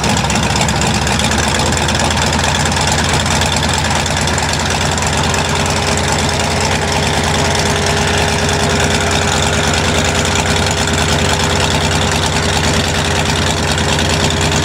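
Rotec radial aircraft engine idling steadily on the ground, turning a wooden propeller.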